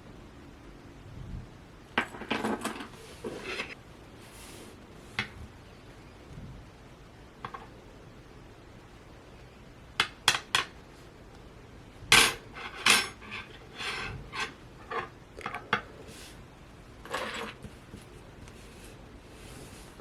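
Hands handling a Funko Pocket Pop vinyl keychain figure and its packaging: scattered sharp clicks and clinks of hard objects with short rustles, busiest from about ten to sixteen seconds in.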